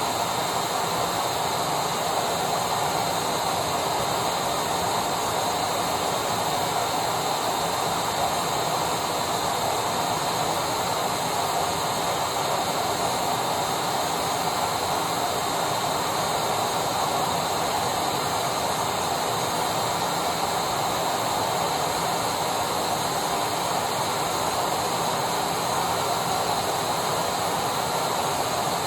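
Vacuum cleaner motor running steadily: a constant rushing hum with a faint high whine above it.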